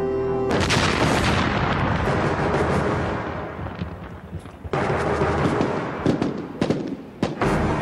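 Two buried land mines exploding. The first blast comes about half a second in, with a long rumbling tail of falling debris; the second comes about halfway through. Several sharp cracks follow near the end.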